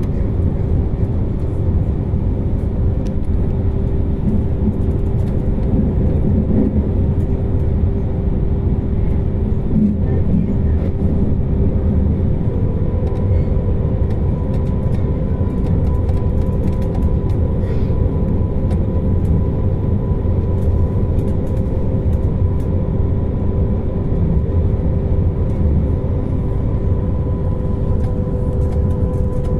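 Interior sound of a moving passenger train: a steady low rumble from the wheels and running gear, with a steady drone of the traction equipment. A higher tone joins in about twelve seconds in.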